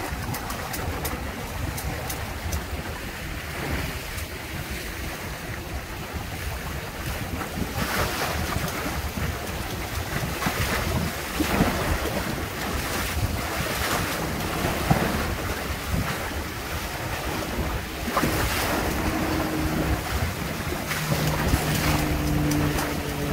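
Wind buffeting the microphone over the rush of water along the hulls of a Windrider 17 trimaran sailing fast through choppy water. Repeated splashes of waves slapping the hull come in from about eight seconds in.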